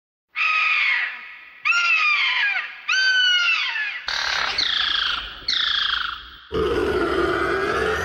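Pterosaur call sound effect: six shrill cries about a second apart, each sliding down in pitch. The last cry is longer, with a low rumble beneath it.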